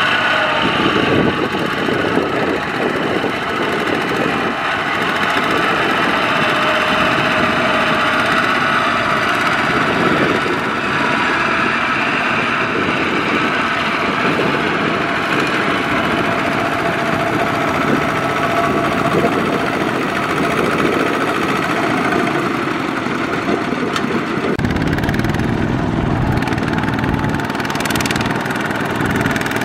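Two-wheel walking tractors' single-cylinder diesel engines running steadily under load, hauling trailers of rice sacks through deep mud and water. About 25 seconds in, the engine sound turns deeper and heavier.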